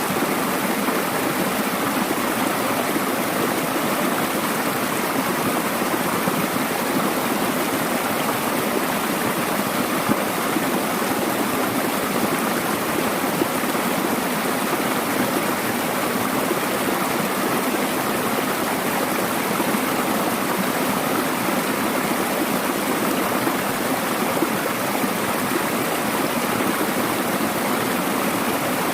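Mountain valley stream rushing over rocks: steady, even water noise.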